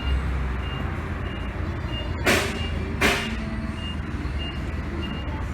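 A vehicle's reversing alarm beeping steadily, about once every 0.7 seconds, over a low engine rumble, with two short hisses about two and three seconds in.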